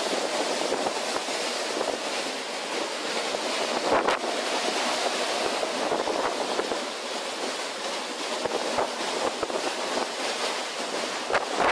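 Storm waves breaking and rushing on a rough sea, with wind buffeting the microphone in an even, noisy roar. There is a louder burst about four seconds in.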